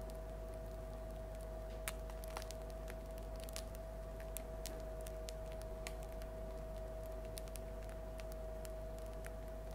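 Freshly baked loaf of bread crackling as its crust cools and contracts ("singing" bread): faint, irregular small clicks and snaps, several a second at times, over a steady faint hum.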